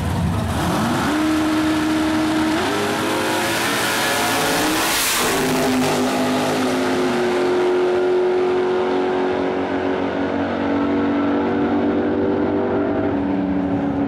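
Two super stock drag cars launching and accelerating hard down the drag strip. The engine note rises, then steps through several gear shifts as the cars pull away into the distance.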